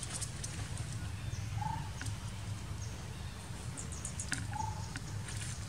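Outdoor ambience: a steady low rumble with scattered small clicks and rustles, and two short calls, alike and about three seconds apart, from an animal.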